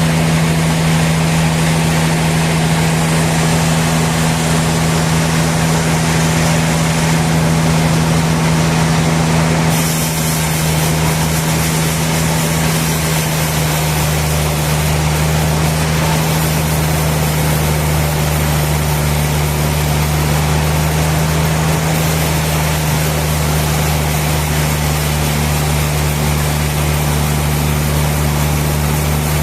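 Sawmill machinery running steadily, a continuous loud hum with a strong low tone and a noisy wash above it. The higher part of the sound changes slightly about ten seconds in.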